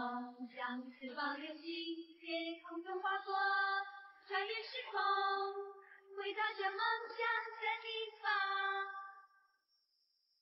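A high singing voice carrying a song's melody with long held notes, stopping about nine seconds in.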